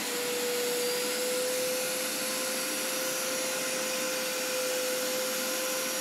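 Hoover Power Scrub Elite carpet cleaner's suction motor running steadily, a constant rush of air with a steady whine, as its hose tool extracts liquid.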